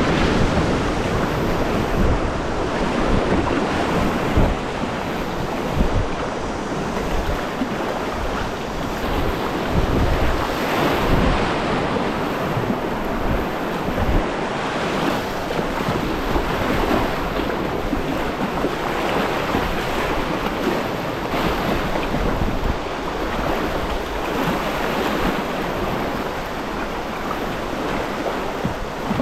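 River water rushing around a kayak running a rapid, with wind buffeting the microphone in irregular low rumbles.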